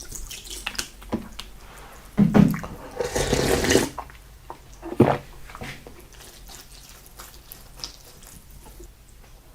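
Close-up wet eating sounds: slurping and chewing of salted seafood, with a couple of louder wet slurps a few seconds in and a sharp smack about halfway, then quieter chewing.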